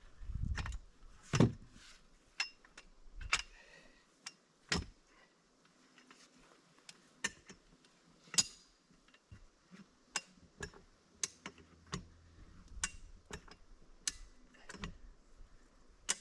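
Scattered sharp knocks and clicks, about one a second at irregular spacing, several with a short metallic ring. Two duller thumps come in the first second or so.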